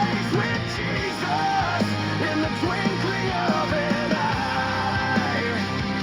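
Rock band playing an instrumental passage: a steady full-band backing under a lead line of bending, sliding notes.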